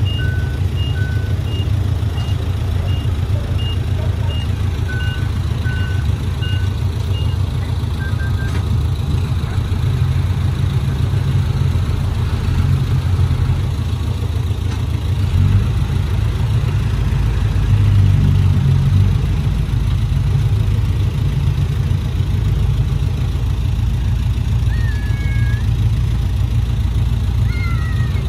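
Heavy diesel construction machinery running with a steady low rumble, while two reversing alarms at different pitches beep at about two beeps a second for the first seven seconds or so. A few short high chirps near the end.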